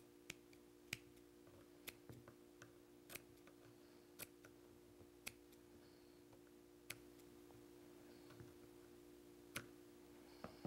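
Scissors snipping through felt, faint sharp clicks coming irregularly about once a second, over a steady low hum.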